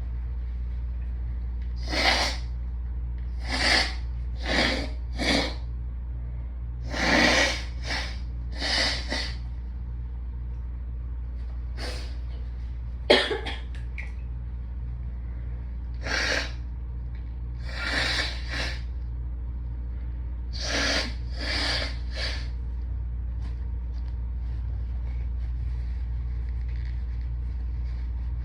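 A person blowing her nose hard, about fifteen short forceful blows in clusters of two or three, clearing a nose stuffed up by hayfever. One sharper, sudden burst comes about thirteen seconds in. A loud air conditioner hums steadily and low underneath.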